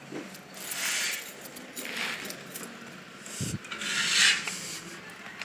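Shoes scuffing and scraping on gritty concrete paving blocks during walking: a few rough scrapes about a second apart, with a short gap and a dull thump before the last, longest scrape.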